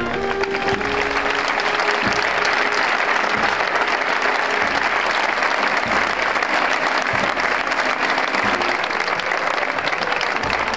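Crowd applauding steadily, with band music fading under it in the first few seconds.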